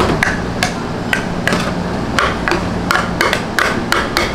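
A kitchen knife striking a wooden cutting board again and again while caul fat is cut on it: sharp knocks about three a second, unevenly spaced.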